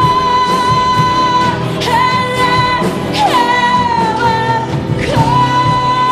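Live church worship band playing with singing. A high melody note is held long, dipping and sliding back up in pitch three times.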